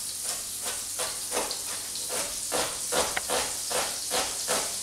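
Knife chopping an onion finely on a chopping board, about two to three chops a second, over the steady sizzle of butter melting in a frying pan.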